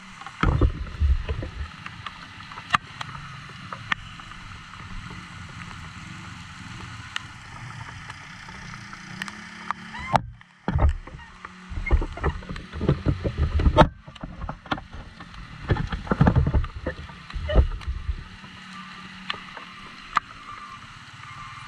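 Motorcycle creeping through heavy rain on a flooded road: a steady hiss of rain and wet tyres, with the engine running low underneath. Bursts of loud low rumbling and knocking come about half a second in and again between about ten and eighteen seconds.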